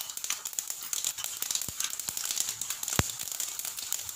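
Mustard seeds, black pepper and chana dal sizzling and crackling in hot oil, with one sharper pop about three seconds in.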